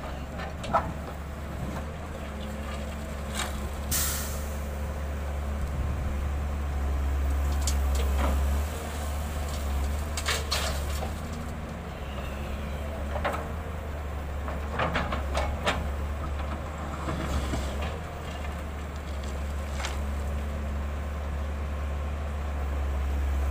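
Diesel engine of a Volvo EW160B wheeled excavator running steadily under load as it digs and loads rock, with a few sharp knocks and clatters from the bucket and stones.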